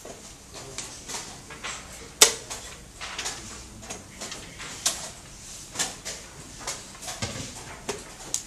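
Wooden chess pieces clicking down onto boards and chess clock buttons being pressed: a string of sharp clicks and knocks at uneven intervals, the loudest a little over two seconds in.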